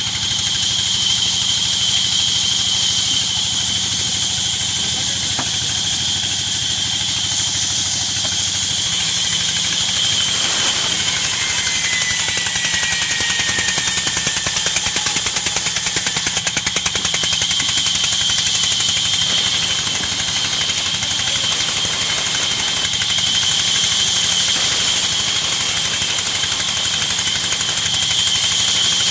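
Large vertical band saw running and ripping a log lengthwise, with a steady high blade whine over the steady mechanical running of the machinery that drives it.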